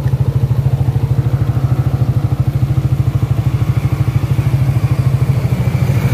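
Motorcycle engine idling steadily, with a fast, even pulse.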